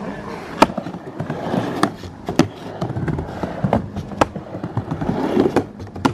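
Skateboard riding a plywood mini ramp: wheels rolling, with several sharp clacks of the board and trucks striking the ramp and coping.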